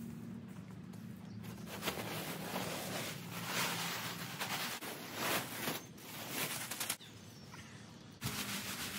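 Brown wood mulch spilling and rustling out of a tipped-up plastic mulch bag onto a garden bed, with the bag crinkling. The sound is loudest around the middle and stops abruptly about seven seconds in.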